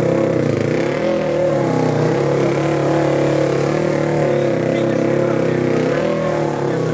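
Enduro motorcycle engine running under throttle, its pitch rising and falling slightly with a brief dip about half a second in.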